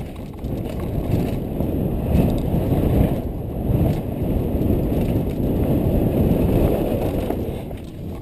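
Downhill mountain bike rattling and its tyres rumbling over dirt and rock at speed, heard from a camera riding along with it, loud and uneven with jolts as it hits bumps.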